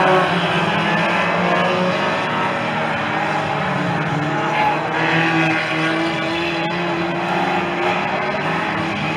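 Several hot saloon stock car engines running hard at racing speed, their notes overlapping and rising and falling in pitch as the cars lap the oval.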